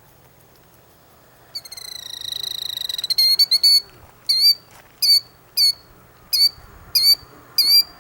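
Killdeer giving alarm calls near its nest: a rapid high trill starting about a second and a half in, then a string of short, sharp, high calls, roughly one every two-thirds of a second.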